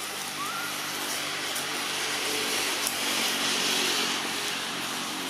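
A steady engine drone under a constant hiss that swells for a second or two around the middle, with one short rising chirp about half a second in.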